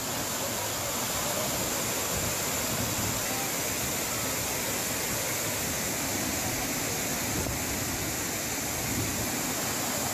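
Rain floodwater cascading over a broad rock ledge like a waterfall, a steady rushing of falling water.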